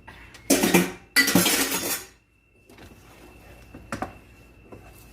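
Pots and dishes clattering: two loud bursts of clatter about half a second and a second in, then a single knock about four seconds in.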